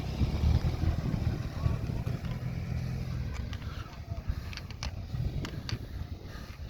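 A car engine running with a steady low hum that weakens after about three seconds, with a few sharp clicks in the second half.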